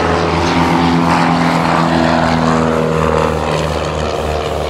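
Piston propeller aircraft engines droning steadily as a smoke-trailing biplane and a high-wing light monoplane fly past in formation.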